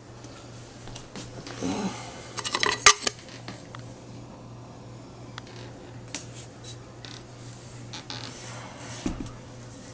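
Light metallic clinks and rattles as a Garrett turbocharger is handled, with a quick cluster of them about three seconds in and scattered single clicks after, over a steady low hum.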